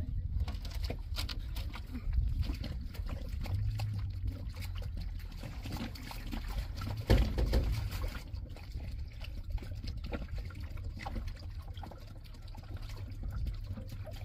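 Water pouring and trickling from a plastic jerrycan into a heap of sand and gravel, over a steady low rumble, with a louder thump about seven seconds in.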